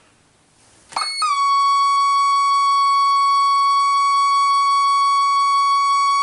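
Casio DH-100 digital horn sounding one long, steady synthesized note. It starts about a second in with a brief slight drop in pitch, then holds level.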